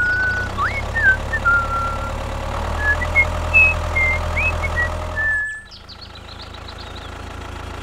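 Tractor engine running steadily with a low rumble, with short high bird-like chirps over it; the engine sound cuts off abruptly about five and a half seconds in, leaving a faint hiss and a few faint chirps.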